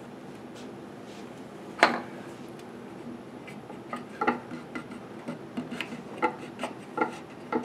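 A small hand roller worked back and forth over thin glued inlay stringing to press it into its groove, giving irregular light clicks and knocks that start about four seconds in. Before that comes a single sharp knock about two seconds in, over a steady low hum.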